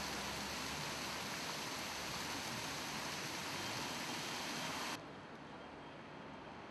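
Steady splashing of a large public fountain's water jets. It cuts off abruptly about five seconds in to a quieter street background with light traffic.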